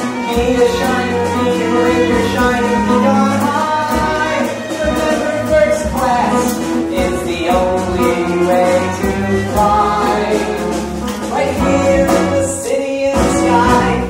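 Live pit orchestra playing a show tune from a stage musical, with singing over it and a steady drum beat.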